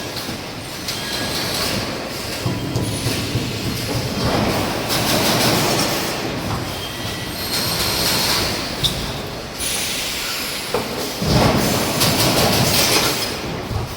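Industrial machinery running: a continuous mechanical rumble and rattle with metallic clatter and a sharp click about two-thirds of the way through.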